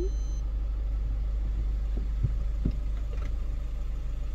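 A car engine idling with a steady low hum. A brief high beep sounds right at the start.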